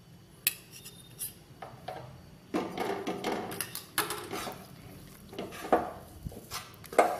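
Metal spatula clinking and scraping against a steel kadai while stirring besan flour with ghee. There are a few sharp clinks at first, then repeated scraping strokes from about two and a half seconds in.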